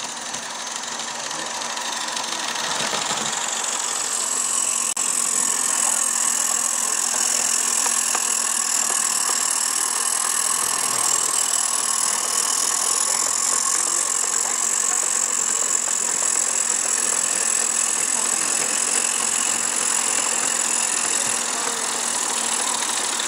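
Live steam model locomotives running, a steady hissing of steam and engine-like running noise that builds over the first few seconds and then holds steady.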